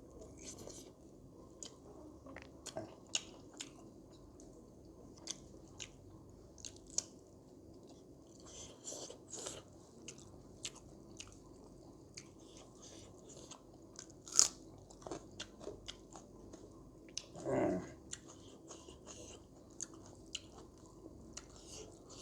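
Close-up mukbang eating sounds: a person chewing and biting into pork curry, with scattered sharp crunches and wet mouth clicks. The sharpest crunch comes a little after 14 s, and a brief low throat sound just before 18 s.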